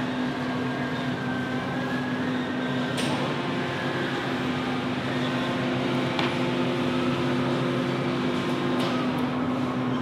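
Steady machine hum with a constant low tone and a few faint clicks.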